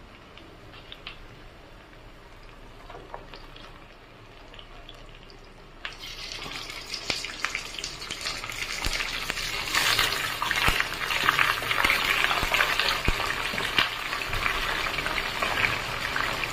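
Sliced onions and dried red chillies frying in oil in a kadai, a faint sizzle. About six seconds in, raw chicken pieces go into the hot oil and the sizzling becomes much louder and crackly, swelling again a few seconds later as more pieces land, with a few knocks of pieces hitting the pan.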